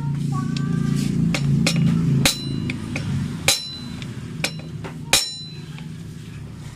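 Hammer blows on a steel tool seated in a motorcycle brake-disc bolt head: about six sharp metallic strikes spread across the stretch, the loudest ringing briefly. The tool is being driven into the bolt head to get a bite on a stuck disc-brake bolt.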